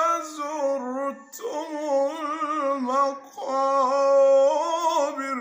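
A man's solo voice in melodic Quranic recitation, mujawwad style. He sings three long, drawn-out phrases in a high register, with wavering, ornamented pitch. There are short breaths about a second in and after about three seconds.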